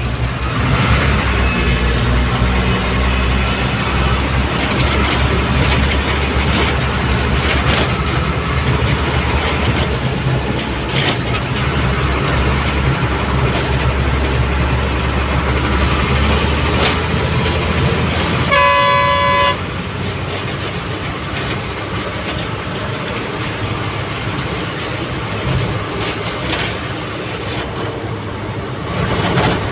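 Vehicle engine and road noise heard from inside the cab while driving: a steady low drone that eases off about two-thirds of the way through. A vehicle horn sounds once for about a second at that point.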